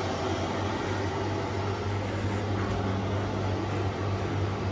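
Air-conditioning unit running: a steady low hum under an even hiss of moving air.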